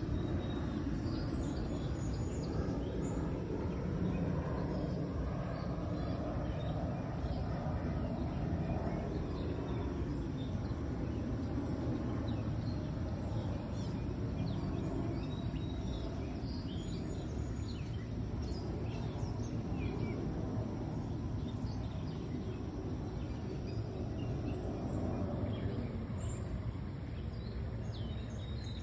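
Outdoor ambience: a steady low background rumble with faint, scattered bird chirps throughout.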